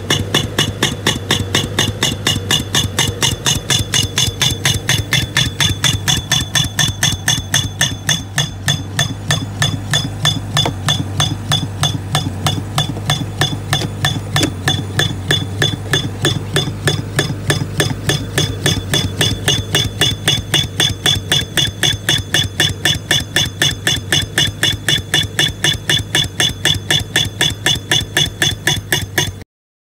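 2-inch pneumatic soil-piercing tool (a 'missile') hammering its way through the ground under a driveway: a loud, rapid, even stream of blows, about four or five a second, over a steady low engine hum. It stops abruptly near the end.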